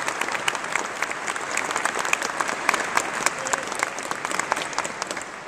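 Audience applauding: many hands clapping in a dense, even patter that eases off near the end.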